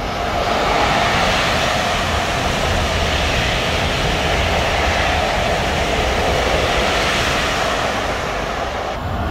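KTX high-speed train passing at speed, a loud, steady rush of wheels on rail and rushing air that eases slightly near the end.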